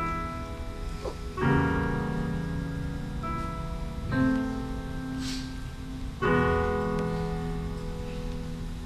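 Piano playing slow, sustained chords, each struck and left to ring and fade, with a new chord about every two to three seconds.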